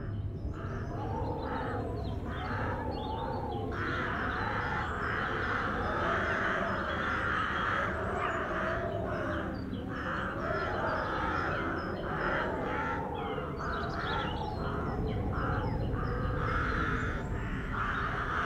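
Crows cawing repeatedly, a field-recording sample mixed into a music track over a low steady rumble.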